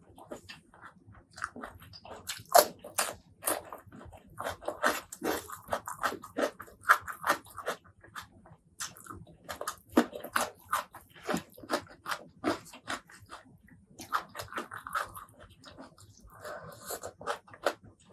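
Close-miked eating sounds: chewing and biting with many irregular sharp crunches and wet mouth noises.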